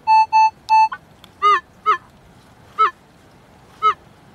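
Minelab metal detector beeping in quick, even pulses of one steady tone through the first second, sounding off over a buried metal target. Then four short honking calls follow, each falling in pitch.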